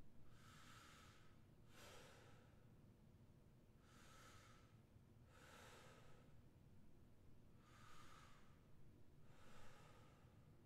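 Faint, slow breathing of a performer lying on his back, heard as airy breaths in and out: six breaths in three pairs, the pairs about four seconds apart.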